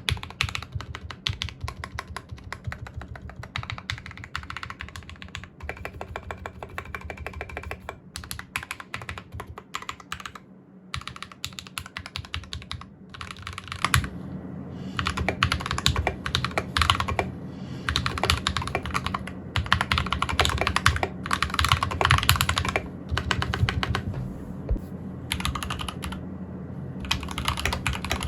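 Custom-built Anne Pro 2 60% mechanical keyboard being typed on in a sound test, its lubed Akko Lavender Purple switches clacking in fast runs of keystrokes in a foam-filled wooden case. The typing grows louder from about halfway, with a few short pauses.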